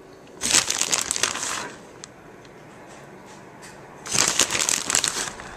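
Plastic shredded-cheese bag crinkling as a hand reaches into it and shakes cheese out, in two bursts: one near the start and one about four seconds in.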